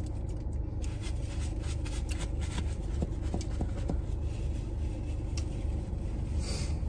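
A person chewing a sausage-and-egg breakfast muffin, with small wet clicks of the mouth and light crinkles of the paper wrapper, over a steady low hum in the car's cabin.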